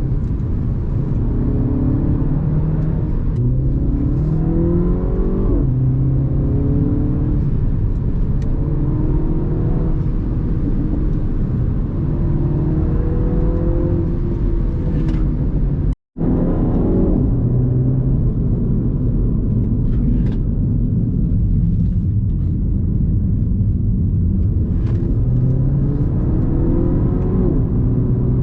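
Mini F56's 2.0-litre turbocharged four-cylinder engine being driven through corners, its pitch rising as it pulls through the gears and dropping at each shift or lift off the throttle, over steady road and tyre rumble. The sound cuts out for an instant about halfway through.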